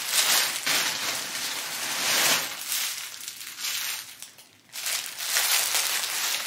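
Thin plastic polybags of packaged clothing items crinkling and rustling as they are handled and pulled from a delivery bag, with a brief pause a little past four seconds in.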